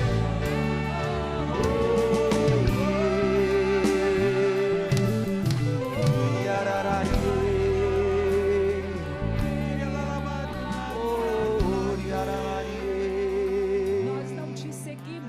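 Worship music: a voice singing long, wavering held notes over steady instrumental accompaniment, growing softer near the end.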